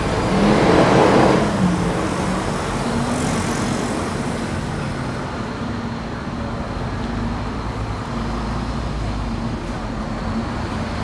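City street traffic: a vehicle passes close by in the first couple of seconds, then a steady rumble of cars and buses with a low engine hum.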